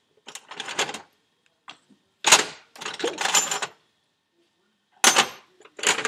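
Short bursts of metallic clicking and rattling, about five in a row with pauses between, from a wrench and metal turbo parts being handled.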